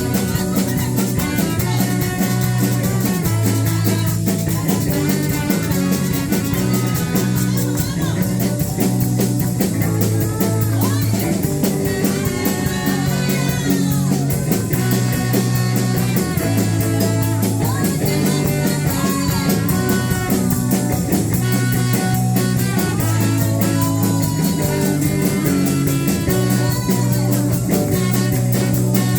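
Band music led by electric guitar, with bending lead lines over steady bass notes and a regular beat.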